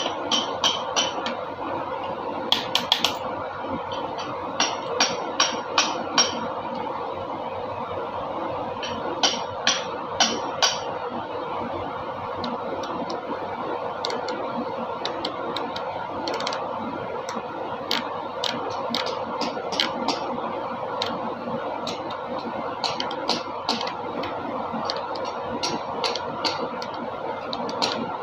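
Irregular sharp metallic clicks and clinks, in short clusters, as tools and engine parts are handled during an engine teardown, over a steady hum.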